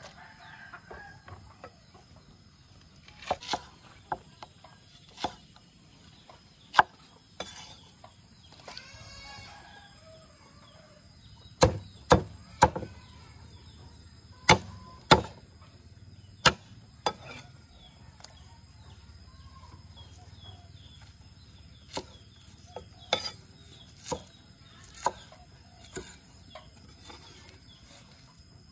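A meat cleaver chopping on a thick wooden tree-trunk chopping block: irregular single strikes, with a quick cluster of hard chops in the middle. A chicken calls once in the background about nine seconds in.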